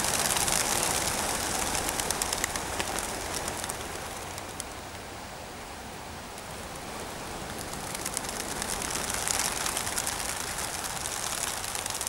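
A flock of racing pigeons taking off, their wings flapping in a dense clatter. It is loud at first, dies down around the middle and swells again near the end.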